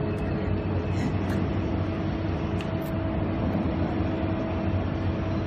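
Steady drone of workshop machinery: a low hum with a steady higher tone above it, and a few faint clicks from metal parts being handled.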